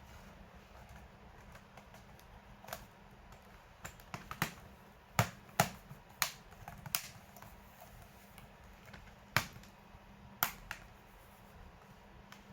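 A series of sharp, irregular clicks and taps, about nine in all, bunched in the middle and again a little later: hard plastic and metal parts being handled while working on an open laptop.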